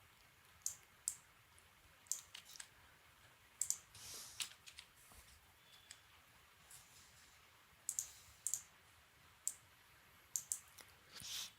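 Computer mouse clicking: faint, irregular single clicks, a few in quick pairs, with a couple of brief scuffing sounds between them.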